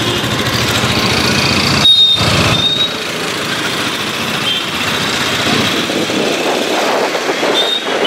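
Motorcycle running under way, heard from aboard the bike as a steady rush of engine and road noise. Brief high squeals come about two seconds in and again near the end.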